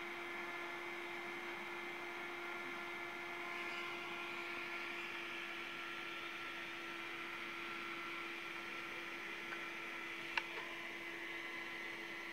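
A steady electrical hum over a hiss, with one sharp click about ten seconds in.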